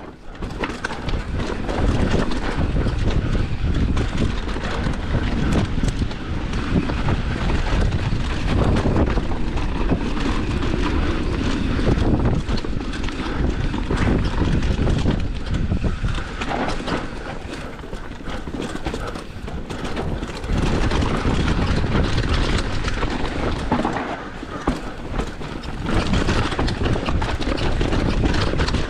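Commencal Meta enduro mountain bike descending a rough, rocky trail at race speed: tyres on rock and dirt, a dense clatter of chain slap, suspension and frame rattles, and many sharp knocks from hitting rocks.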